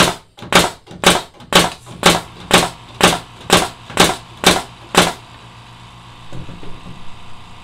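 A Bosch pneumatic trim nailer fires 2.5-inch trim nails into a 2x4 in quick succession: eleven sharp shots, about two a second, that stop about five seconds in.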